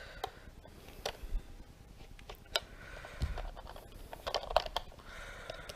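Scattered light clicks and rattles of a hard plastic RC transmitter being handled while its batteries are fitted, with a soft thump about three seconds in.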